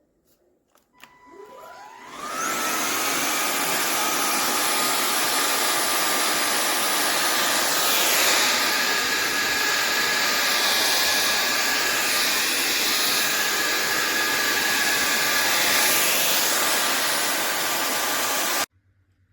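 SunSare X7A cordless stick vacuum's motor spinning up with a rising whine, then running steadily with a high whirr, its tone shifting somewhat through the middle. It cuts off suddenly near the end.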